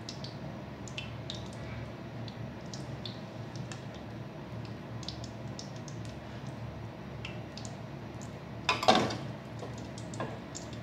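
Hot oil in a wok crackling with scattered small pops as pieces of cornflour-and-egg-battered chicken are lowered in to deep-fry. A louder half-second burst comes about nine seconds in.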